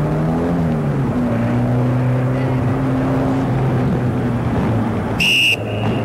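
A car's engine running hard as it is driven through a slalom course of cones, its pitch rising briefly near the start and then holding steady. About five seconds in, a short shrill whistle blast sounds over it, followed by a fainter tone of the same pitch.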